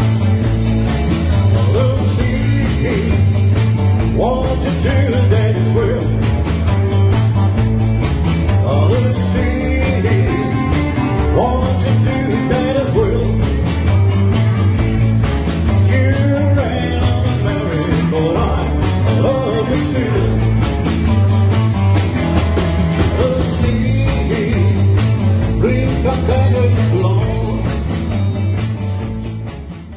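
Band playing fifties-style rock and roll, with a steady bass beat and a melody line on top. It fades out near the end.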